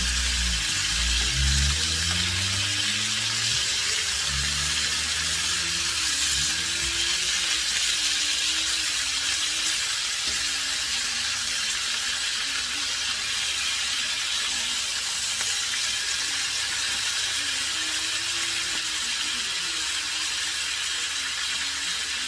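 Chicken breast pieces frying in hot oil in a wok, a steady sizzle as they brown.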